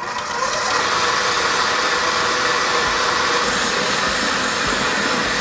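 KitchenAid stand mixer switched on, its electric motor and wire whisk whipping eggs and sugar: a steady whir that builds over the first second, then holds even.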